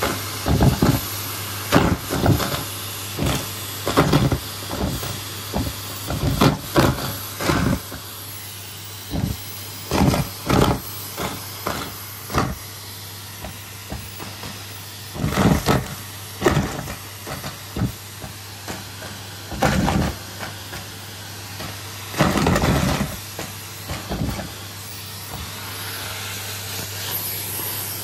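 Vacuum cleaner running with a steady hiss and hum, broken by many short, irregular knocks and rubs from balloons and fluff against the nozzle.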